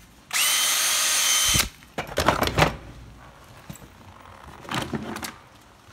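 Makita cordless drill run free for about a second, a steady motor whine that cuts off suddenly: a quick test that the drill runs. It is followed by a few clattering knocks of the drill and its plastic case being handled.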